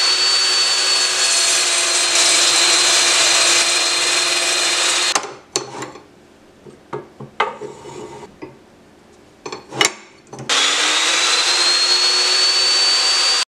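Evolution S355CPSL cold-cut metal chop saw with an 80-tooth aluminium blade cutting aluminium bar: loud steady cutting noise with a high whine, stopping about five seconds in. A few seconds of scattered clicks and knocks follow. At about ten and a half seconds the saw starts again, its whine rising in pitch as it spins up and cuts once more.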